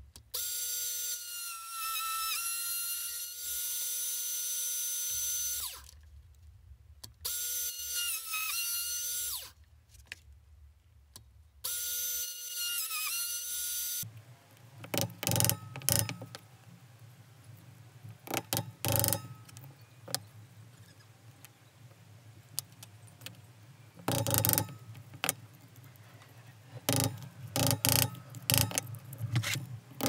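Benchtop drill press motor running in three bursts, drilling through stacked knife-handle parts, its whine dipping in pitch each time the bit bites under load. After that, wooden blocks knocking and clattering in scattered clusters as they are handled on a workbench.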